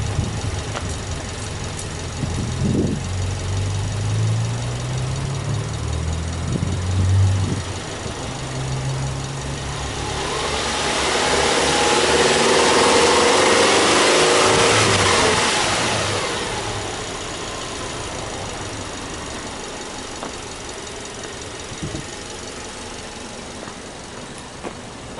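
Subaru Legacy B4 2.5i's flat-four boxer engine idling, with two short throttle blips in the first eight seconds or so. Around the middle a broad rushing noise swells for a few seconds and fades, louder than the engine.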